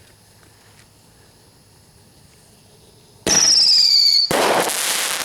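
A consumer firework going off: about three seconds in, a loud shrill whistle falling slightly in pitch for about a second, then a loud burst that dies away over the next second or two.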